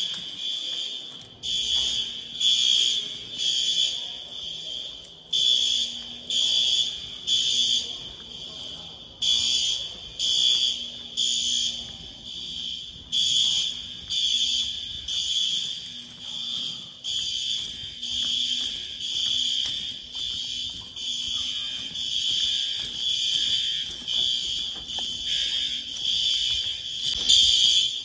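School fire alarm horns sounding in a temporal-three pattern: three short pulses, then a pause, repeating about every four seconds. The building is in alarm during a fire drill, set off from a manual pull station.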